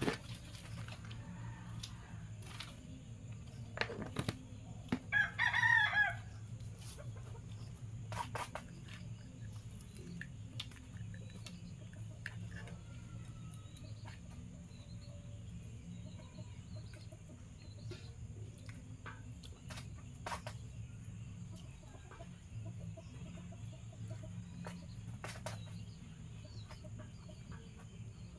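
A chicken calls once, a short crow lasting about a second, about five seconds in. Around it are a few scattered light clicks and a steady low hum.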